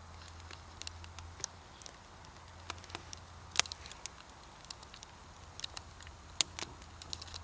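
Campfire crackling: sparse sharp pops and snaps at irregular intervals, a couple of them louder than the rest.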